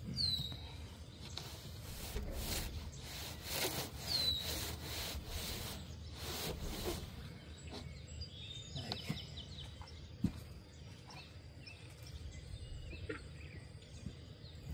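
A plywood sheet dragged and shuffled over grass in several short scraping strokes during the first seven seconds or so, while birds chirp, with two quick falling chirps near the start and about four seconds in.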